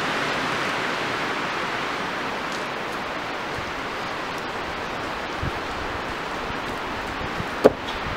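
Steady, even hiss of outdoor background noise, with one sharp knock near the end from a wooden pole knocking against the lean-to's frame.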